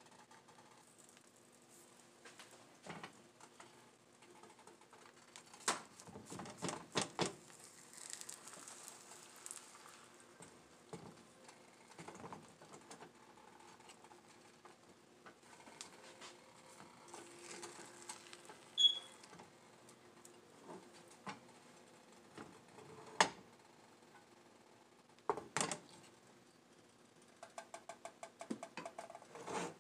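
A silicone spatula scraping and tapping in a nonstick frying pan as beaten eggs cook for an omelet. There are scattered clicks: a cluster about six seconds in and two louder taps in the last third.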